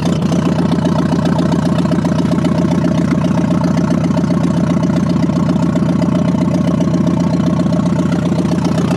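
1953 Ford Golden Jubilee tractor's four-cylinder gasoline engine idling steadily, freshly started from cold.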